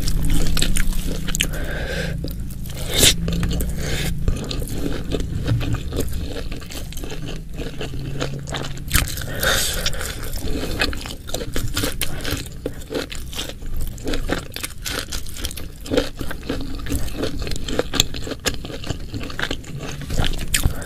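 Close-miked eating: a person chewing and crunching food, with irregular wet clicks and scrapes through the whole stretch.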